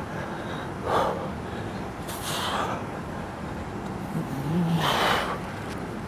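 Hard breathing from exertion during crunches: three forceful exhaled puffs, about a second in, a little after two seconds and near five seconds, the last with a short grunt.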